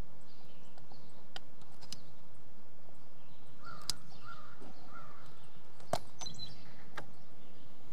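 A crow cawing three times in quick succession about four seconds in, over a steady outdoor background hiss. A few sharp clicks come and go around it.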